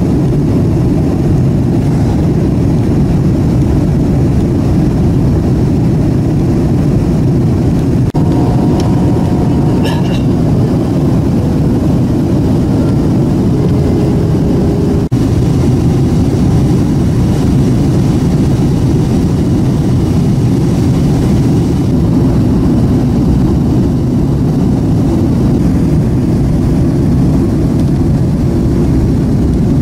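Steady cabin roar of a Boeing 767 jet airliner on final approach with its flaps down: engine and airflow noise heard from inside the cabin, over the wing.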